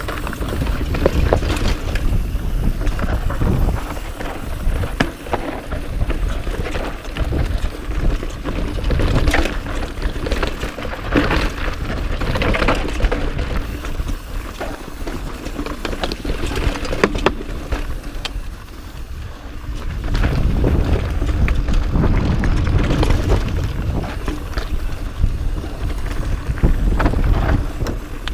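Mountain bike riding over rocky dirt singletrack: tyres crunching over dirt and loose rock, the bike rattling with frequent sharp knocks over the bumps, under steady wind rumble on the camera microphone. It eases off briefly about two-thirds of the way through.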